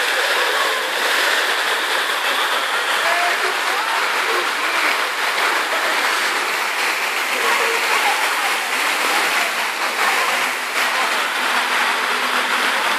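Steady rush of water pouring from water-slide outlets and splashing into a pool, with faint voices mixed in.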